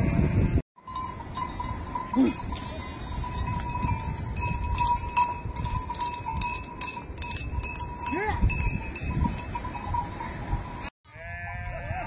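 Small metal bells jingling and ringing steadily, with a short call rising in pitch about two seconds in and again about eight seconds in. Near the end, after a brief break, sheep bleat.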